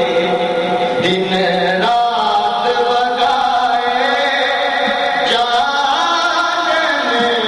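A man singing a naat, a devotional poem in praise of the Prophet Muhammad, into a microphone, in long held notes that glide from pitch to pitch.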